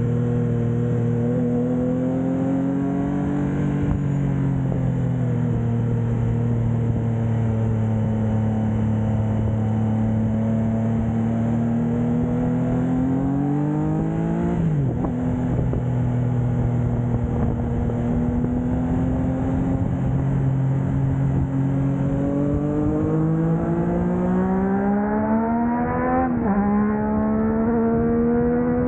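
Triumph Trident 660's inline three-cylinder engine through a Blackwidow 200mm aftermarket exhaust, cruising and then accelerating. Its note climbs in pitch and drops sharply at an upshift twice, about halfway through and near the end.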